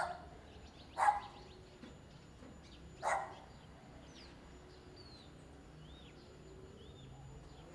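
A dog barks three times, the second about a second after the first and the third about two seconds later, while small birds chirp faintly in between.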